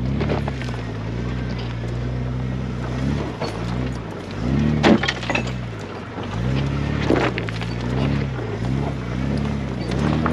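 Jeep Grand Cherokee WJ's engine pulling at crawling speed over rocks, its pitch rising and falling with the throttle. A few sharp knocks cut through, the loudest about five seconds in.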